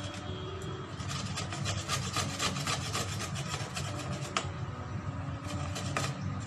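Raw pumpkin being grated by hand on a flat stainless-steel grater, a rapid run of rasping strokes, one after another.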